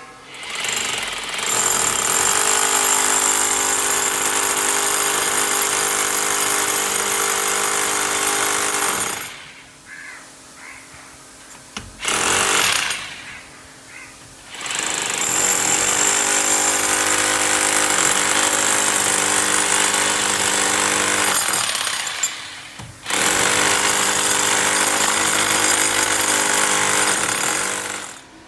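Electric hammer drill boring into a masonry wall, run in three long stretches with a short burst between them and pauses in between.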